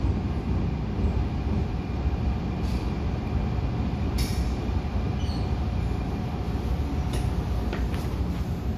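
Interior running noise of an MTR A-Train electric multiple unit: a steady rumble of wheels on rail with a faint steady whine. A few short sharp clicks and squeaks come through in the second half.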